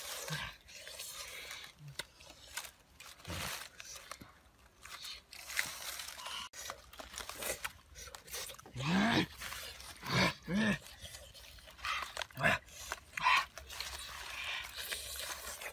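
People eating roast chicken with their hands: chewing and smacking, with crunching and tearing of the meat, and a few short voice-like sounds about nine to eleven seconds in.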